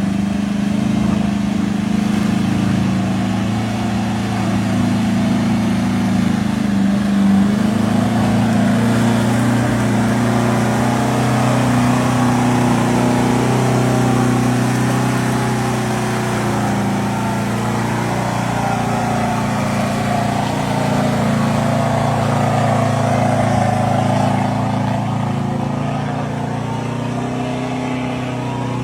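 Toyota Hilux Vigo pickup's engine working hard under load as the truck crawls over rough off-road terrain. It makes a steady, loud drone whose pitch rises and falls only slightly.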